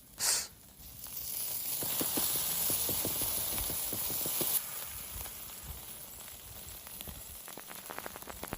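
Sizzling and crackling on a barbecue grill. A hiss builds about a second in and cuts off suddenly about halfway through, followed by scattered light crackles and ticks.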